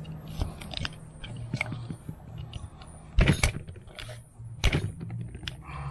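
Kitchen knife chopping blue crabs in half on a wooden cutting board: a run of sharp knocks of the blade going through the shell onto the board, the loudest a pair about three seconds in and another a second later.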